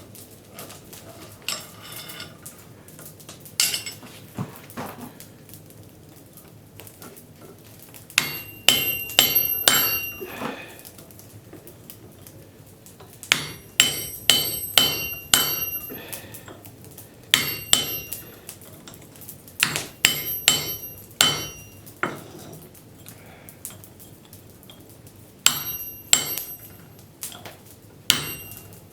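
Hand hammer striking metal in about six bursts of quick blows, each blow with a high metallic ring, typical of a socket being hammered as a punch to stamp a circle into hot forged steel. A few single, softer taps come early on.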